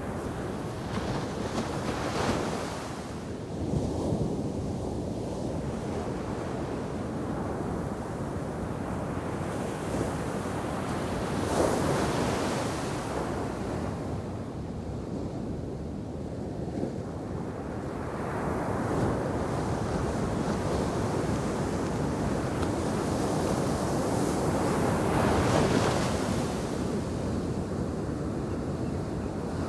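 Heavy shore-break waves crashing and washing onto a sand beach, rising in surges every few seconds, the loudest about twelve seconds in and again near the end, with wind noise on the microphone.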